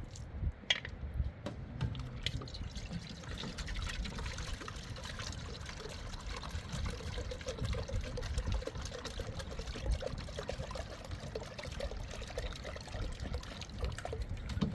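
Water trickling, with a few sharp clicks in the first couple of seconds.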